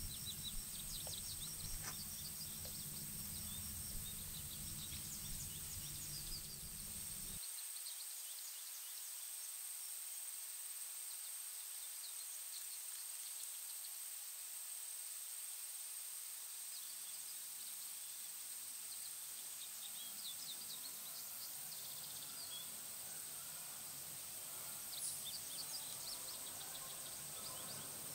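Quiet woodland ambience: scattered faint bird chirps over a steady thin high-pitched tone, with a low hum that cuts off suddenly about a quarter of the way through.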